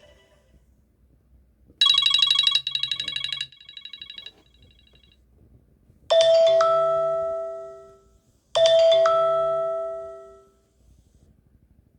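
iPhone alert tones played one after another: a quick run of high, shimmering electronic chimes about two seconds in that echoes away, then a bell-like chime sounded twice, about two and a half seconds apart, each ringing out for nearly two seconds.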